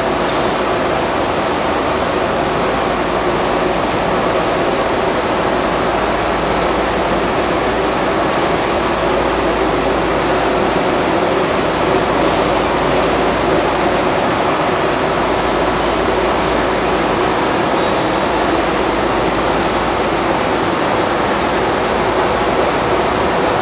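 Automated packaging machine running, a steady dense mechanical noise without a clear rhythm or change in level.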